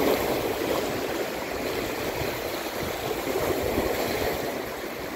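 Sea waves washing and breaking over shoreline rocks: a steady rushing wash of surf, with a louder surge at the start.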